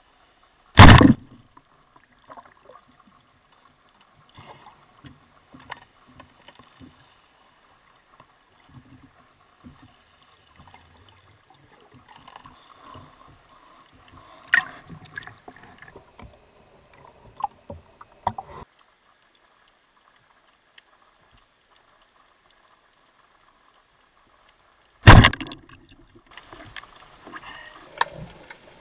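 Underwater recording: a Rayo rubber-band speargun fires with a loud, sharp crack about a second in, and a second crack of the same loudness comes near the end. Between them, scattered faint clicks and water noise.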